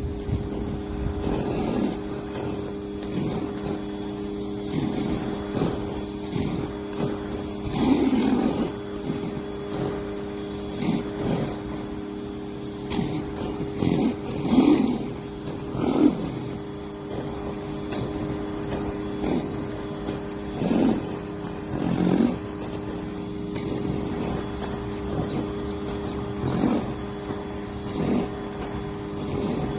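Greenworks 1800 psi electric pressure washer running steadily with a hum, water hissing through the surface cleaner attachment onto concrete. Louder surges come every few seconds at irregular intervals.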